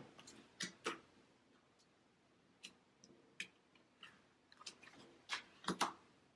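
Tarot cards being handled on a tabletop: a dozen or so light, irregular taps and clicks of card stock as cards are lifted off and laid onto the decks, the loudest few near the end.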